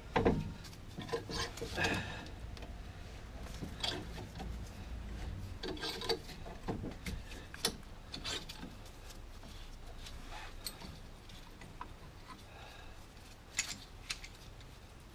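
Tools and brake parts being handled: scattered light clicks, knocks and rubbing, with a few louder knocks in the first couple of seconds and near the end.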